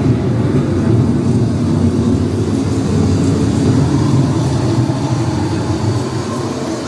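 A steady low rumble with no speech or music.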